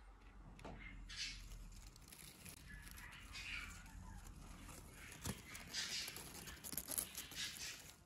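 Budgerigars moving through a flower bouquet: faint rustling of petals, leaves and stems, with soft budgie chatter and a sharp click about five seconds in.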